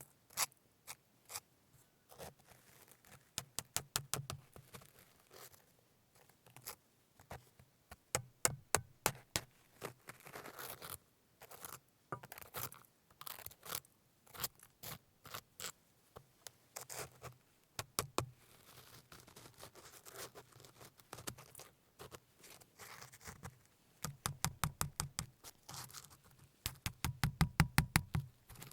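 Hand-held cooking work: quick runs of sharp taps and clicks mixed with scraping, with heavier tapping runs near the end.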